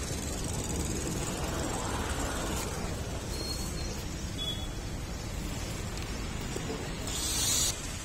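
Water from a garden hose running and splashing as a buffalo is washed down: a steady hiss, with a short louder spray hiss about seven seconds in.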